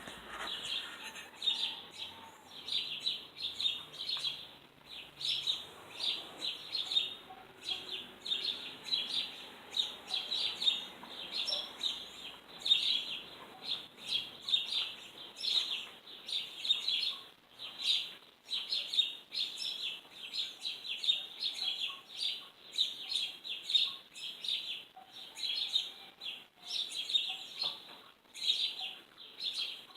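A bird chirping: short, high-pitched chirps repeated rapidly, a few each second, without pause.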